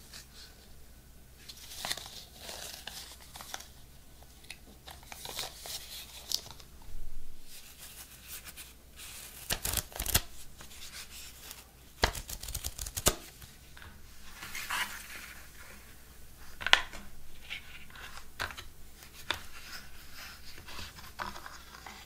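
Paper and plastic packaging being handled: irregular rustling and crinkling, with scattered sharp clicks and taps as a smartwatch charger, a rolled paper guide and the watch are taken out and turned over. The densest crackling comes about halfway through, and the sharpest tap comes near the end.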